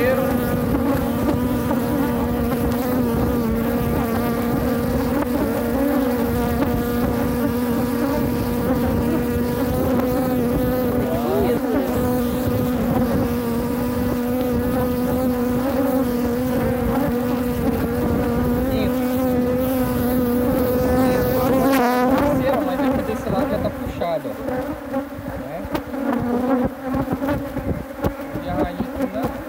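Honeybees buzzing around an opened hive as its comb frames are lifted out, a steady, close hum. About two-thirds of the way through, the hum grows weaker and more uneven.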